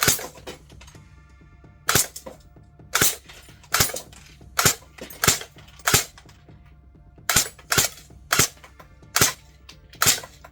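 Airsoft AK-style rifle firing single shots, about a dozen sharp pops spaced unevenly, some close together and some a second or more apart.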